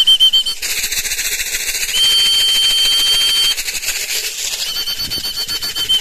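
A pigeon fancier whistling a high call, wavering at first, then held steady for about a second and a half, then wavering again near the end, over a continuous rapid rattle of seed shaken in a plastic feed jar: the usual way of calling a returning racing pigeon down off the roof and into the loft trap.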